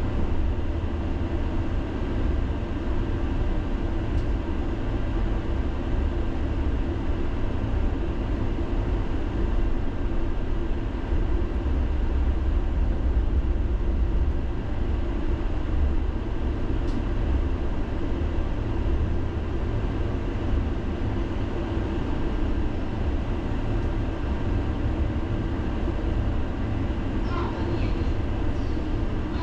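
Tram running along its rails: a steady low rumble of wheels and running gear, heard from inside the car.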